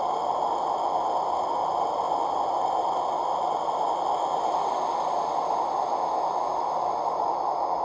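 ESU LokSound 5 sound decoder in a Märklin HO model of an ÖBB 1043 electric locomotive, standing still and playing a steady electric-locomotive standing sound through its small speaker: an even hiss with thin high tones over it.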